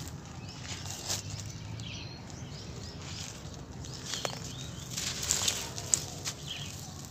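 Dry sand-cement mix being crumbled and sifted through bare hands: a grainy rustle of falling grains and dust, with a few sharp crunches as lumps break, busier in the second half.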